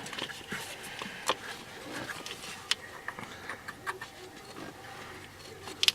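Light plastic clicks and taps as a new distributor rotor is handled and pressed onto the distributor shaft, with a sharper click near the end.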